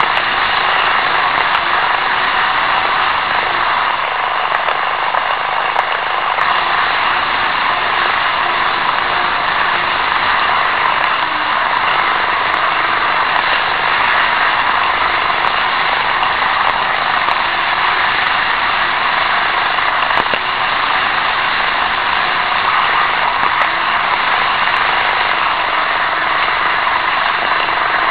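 N-gauge model trains running on the layout track: a steady whirring, rolling noise of small motors and wheels on rail, picked up close by a tiny camera riding on a freight wagon.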